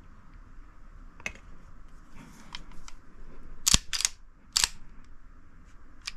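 Sharp clicks and clacks of a stainless Kimber 1911 pistol, its magazine and a foam-lined plastic pistol case being handled. There are a few scattered light clicks, with the loudest pair of clacks a little past halfway and another just under a second later.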